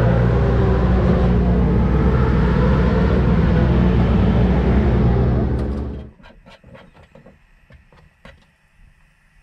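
Racing motorcycle engines running hard at the circuit, a loud steady drone that cuts off abruptly about six seconds in. After that it is quiet, with a few light clicks.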